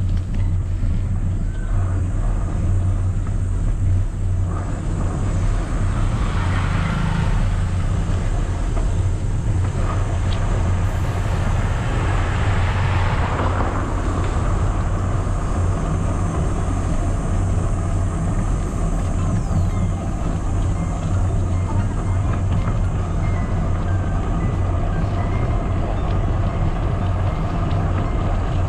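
Steady low rumble of wind buffeting the microphone and bicycle tyres rolling on a concrete road, with two swells of hiss about six and twelve seconds in.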